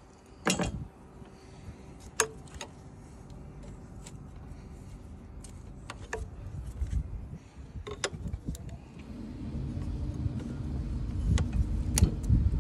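Hand tools clicking and clinking against the fuel-line fittings of a 1.6 TDI diesel engine: scattered sharp metallic clicks a second or more apart. A low rumble builds in over the last few seconds.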